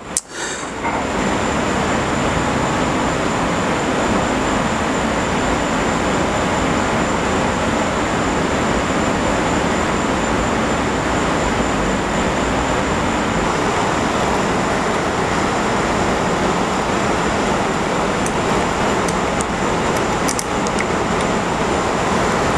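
A machine running steadily, a constant noise with a thin high whine on top. It comes in just after a brief dip at the very start.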